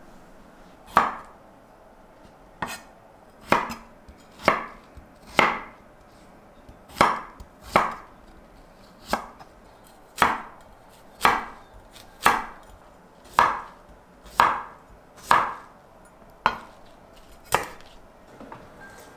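Kitchen knife cutting vegetables on a cutting board, one slow, deliberate cut about every second, each ending in a sharp knock of the blade on the board.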